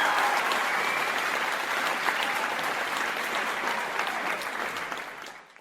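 A crowd applauding, many hands clapping, with a few voices calling out at first; the clapping slowly dies down and the track cuts off abruptly at the end.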